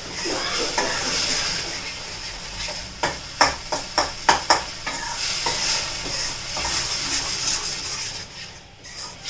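Spice masala sizzling as it fries in ghee in a kadhai, stirred with a spatula. There is a run of about six sharp knocks of the spatula against the pan between about three and four and a half seconds in.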